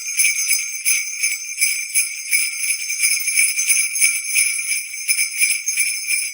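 Jingle bells shaken steadily, a continuous bright high jingle made of many quick rattles with no low notes.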